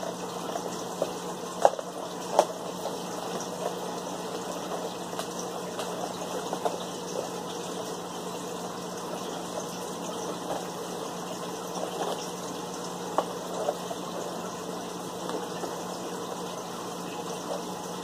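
A few light taps and clicks of a cardboard snack-kit box being turned over in the hands, the sharpest about two seconds in. Under them runs a steady hiss with a low hum.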